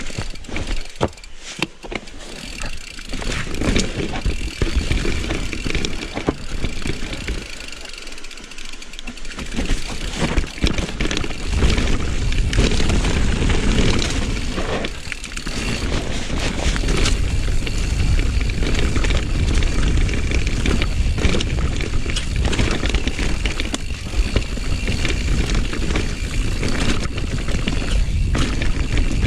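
Rocky Mountain Slayer mountain bike ridden fast down dirt singletrack: tyres rolling on dirt, the chain and frame rattling with many sharp clacks over bumps, and wind rushing on the GoPro's microphone. The rumble grows louder about ten seconds in.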